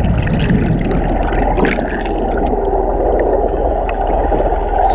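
Muffled, steady rush of churning water and bubbles, heard underwater, as an Amphicar 770 drives down into a lake with its front wheel stirring up the water.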